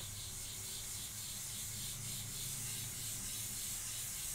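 Whiteboard eraser rubbing marker off a whiteboard in quick back-and-forth strokes: a steady hissing swish that pulses with each stroke.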